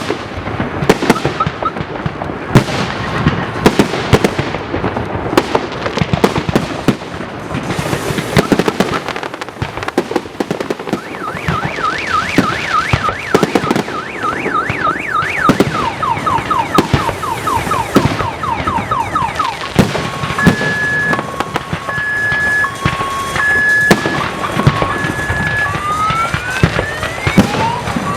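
Fireworks salute bursting in rapid, continuous bangs. From about a third of the way in, an electronic alarm sounds over them, cycling through a fast warble, then on-off beeps, then rising whoops near the end.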